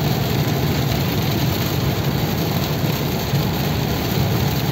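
Steady noise inside a car cabin driving in heavy rain: the car running along a wet road with rain drumming on the roof and windshield, a low rumble under an even hiss.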